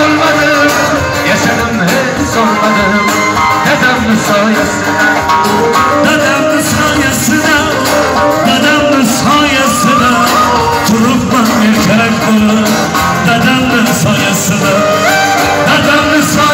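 Live band music: an acoustic guitar strummed over a Korg electronic keyboard, with a man singing.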